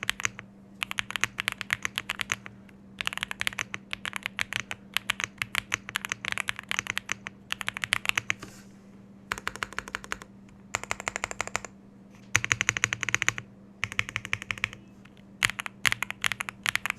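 Typing on a Jris 65 mechanical keyboard with Akko V3 Cream Yellow Pro linear switches and Akko gradient grey keycaps. The keystrokes come in rapid runs of one to two seconds with short pauses between. A faint steady hum runs underneath.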